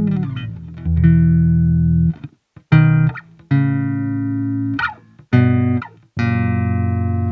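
Electric bass guitar played fingerstyle on freshly boiled strings: a phrase of plucked notes, some short and some held and ringing out clearly.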